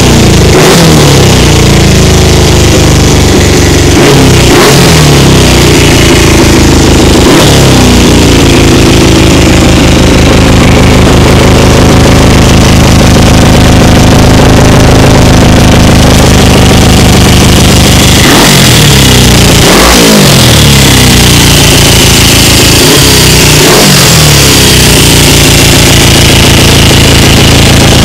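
Suzuki GS500's air-cooled parallel-twin engine running loud and being revved repeatedly, the pitch swinging up and back down with each blip of the throttle, a few times in the first quarter and again in a cluster about two-thirds of the way through, settling back to a steady run between.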